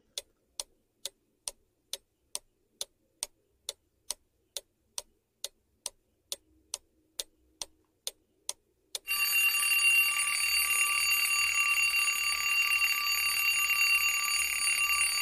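A quiz countdown-timer sound effect: a clock ticking evenly, a little over two ticks a second. About nine seconds in, an alarm-clock bell starts ringing loudly and keeps going, signalling that the answer time is up.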